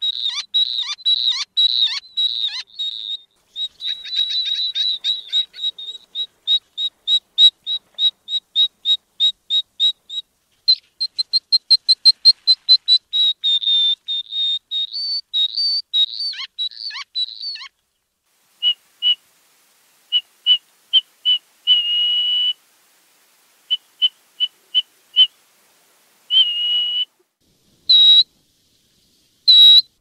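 Double-banded courser calling: a long series of thin, high whistled notes, several a second, that quickens into a fast run about a third of the way in. It then breaks into spaced single notes with a few longer held whistles.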